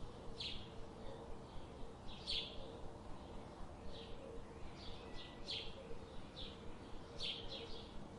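Birds chirping: short, high chirps spaced irregularly about a second apart, over a steady background hiss.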